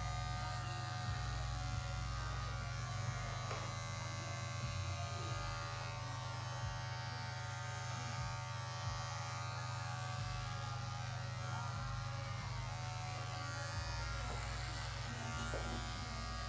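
Electric hair clippers running with a steady buzz as they shave hair off a head.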